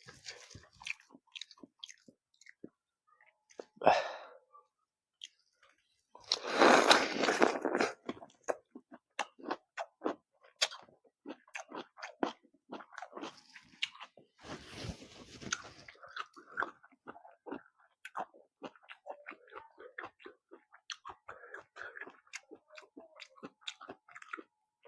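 Close-miked chewing and biting of vegetables: a run of short mouth clicks, broken by three louder bites about four seconds in, around seven seconds and around fifteen seconds.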